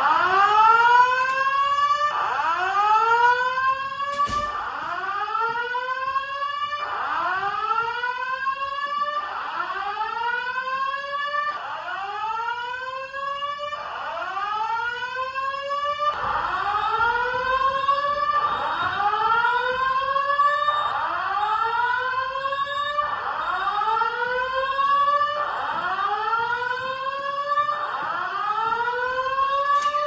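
Simplex voice-evacuation fire alarm speakers sounding a whoop tone: a loud rising sweep repeated about every two and a half seconds during a fire alarm audible test.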